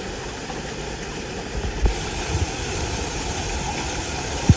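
Steady roar of a waterfall pouring into a pool, with a few low thumps on the microphone.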